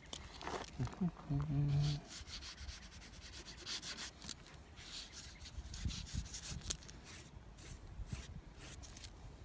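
Repeated short rubbing and scraping strokes on the painting surface as the spray-paint artwork is worked over and cleaned up. About a second in there is a brief low pitched tone, the loudest moment.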